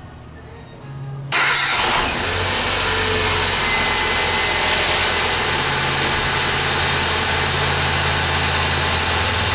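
2011 Ford Fiesta engine cranking briefly, catching about a second in with a short flare, then running at a steady cold idle with a faint, quick, high ticking. This is the cold start the owner complains of for an irritating engine noise.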